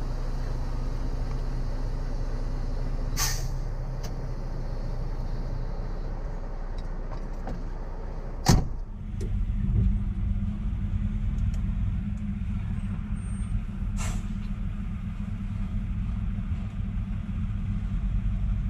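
Semi-truck diesel engine idling steadily, with a sharp click about three seconds in and a loud slam of the cab door shutting about eight and a half seconds in; after the slam the idle sounds fuller and lower. Another faint click comes near the end.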